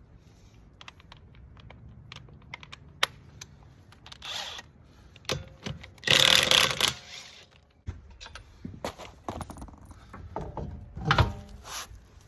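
Metal clinks and rattles of tools and lug nuts as a car wheel is taken off, with a loud burst lasting about a second roughly six seconds in and another loud clatter near the end.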